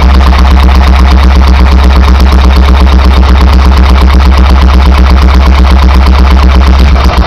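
1927 Petter M type 1½ hp single-cylinder two-stroke stationary engine running on its first run after a complete rebuild, with a fast, even beat of firing strokes. About seven seconds in, the beat turns rougher and less even.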